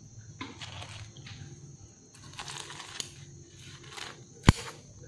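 Kitchen scissors cutting through the crisp, flaky fried crust of a bánh gối, giving short bursts of crackling crunches, with one sharp click near the end.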